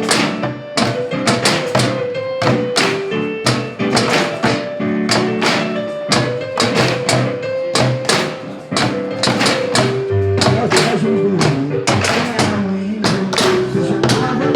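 Percussion ensemble of instruments made from recycled cans playing a song: a steady beat of sharp strikes over a pitched melody and bass line.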